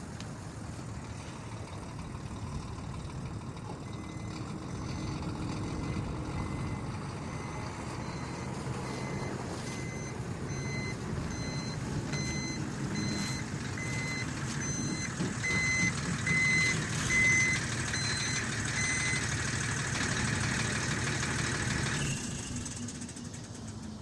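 Diesel truck engine running as the truck reverses, its backup alarm beeping about once a second for roughly fifteen seconds. The engine grows louder partway through and fades away near the end.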